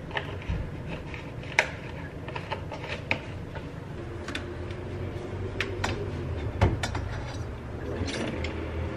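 Espresso machine being handled: metal clicks and knocks from the portafilter and a steel milk jug. From about four seconds in, a steady low hum from the machine running.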